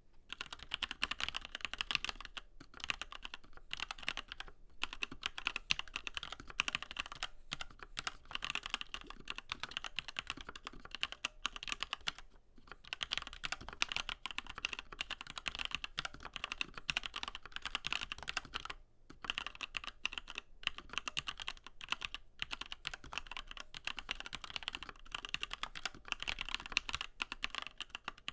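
Fast continuous typing on a mechanical keyboard with Gateron Yellow linear switches and double-shot PBT keycaps: a dense run of key clacks, with a few short pauses.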